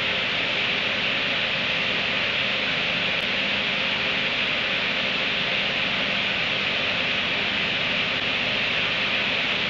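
Steady, even hiss with no distinct events, strongest in the upper range.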